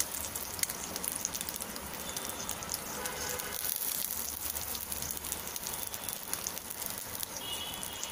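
Halved boiled eggs sizzling in hot oil in a frying pan, a steady crackle of small spattering pops.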